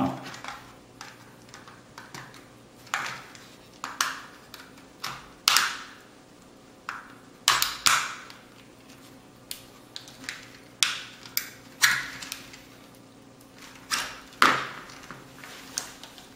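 Hard plastic parts of a snap-together toy RC car clicking and knocking as the body is handled and pried at its snap tabs: irregular sharp clicks, a few louder knocks among them.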